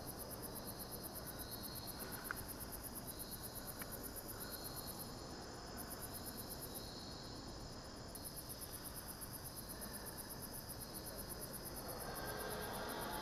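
Faint cricket-like insect chirping: a fast, even, high pulsing with a short chirp repeating about every second and a half over a low steady hiss.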